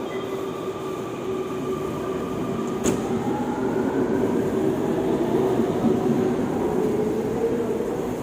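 LRT-1 4th generation train's Mitsubishi IGBT-VVVF traction motors whining as the train pulls away, the tones rising in pitch over wheel-on-rail rumble. A sharp click comes about three seconds in.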